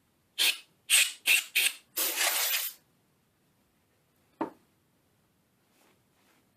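Four short bursts of hissing noise in quick succession, then a longer hiss of just under a second, followed a couple of seconds later by a single sharp click.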